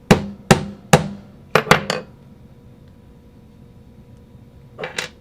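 Hammer blows driving a small pin into a paintball Cyclone feed ratchet: three evenly spaced taps, then three quicker ones, each with a short ring, and two more near the end.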